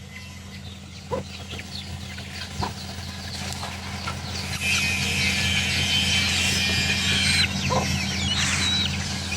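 Chicken clucking, a few short clucks spread through, over a steady low hum; a hiss swells in the middle.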